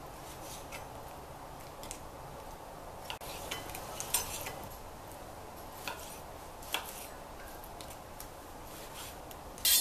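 Kitchen knife slicing raw tilapia fillets on a cutting board: faint, scattered taps as the blade meets the board, with a louder knock near the end.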